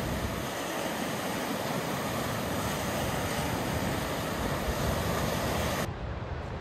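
Steady rush of ocean surf breaking on a beach, mixed with wind. Near the end it turns abruptly softer and duller.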